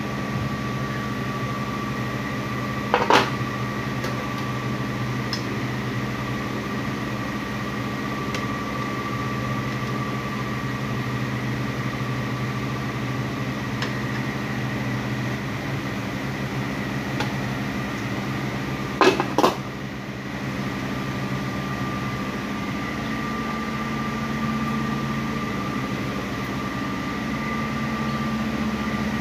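Steady mechanical hum of kitchen ventilation running, with two brief metal clatters of pots or lids, one about three seconds in and another around nineteen seconds.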